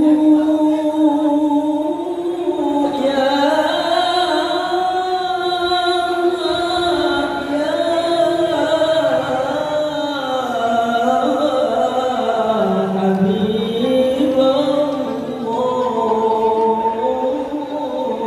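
Lead singer of a marawis group singing a slow, drawn-out melismatic line unaccompanied, long held notes sliding up and down, in the jiharkah style. No drum strokes are heard.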